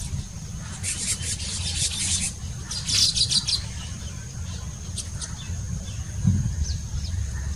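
Male baya weaver chattering at its nest: a fast run of dry chirps about a second in, a louder burst around three seconds, then a few single chirps.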